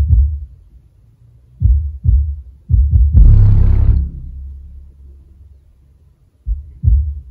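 Deep bass from a song played loud through an SVS PB16-Ultra subwoofer: a few short, punchy low thumps, then a long heavy bass swell with a noisy rush over it about three seconds in that slowly fades away, and the thumps return near the end.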